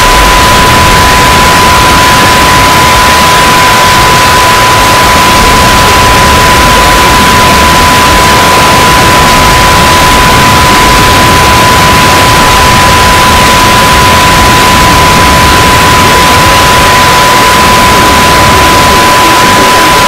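Many sound effects played on top of each other at full volume, blending into a loud, static-like din, with one steady high beep tone held throughout.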